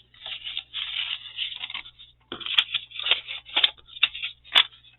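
Sheets of paper and vellum handled and shuffled, rustling and crinkling, with a few sharp crackles in the second half.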